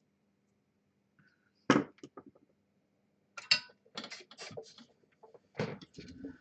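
Tools and parts being handled on a soldering workbench: a sharp knock about two seconds in, then a run of clattering knocks and clicks, and another sharp knock near the end.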